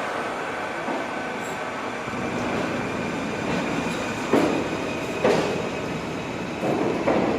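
R46 subway train pulling out of the station: a steady rumble of the cars with a faint whine, and several sharp clacks of wheels over rail joints in the second half.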